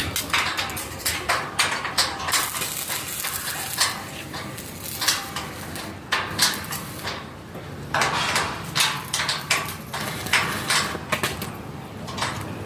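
Irregular metallic clanking and knocking in quick clusters, typical of steel parts being handled and struck during shed fabrication work.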